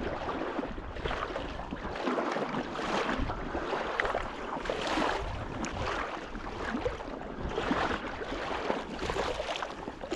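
Wading strides through shallow water, sloshing and splashing about once a second, with some wind on the microphone.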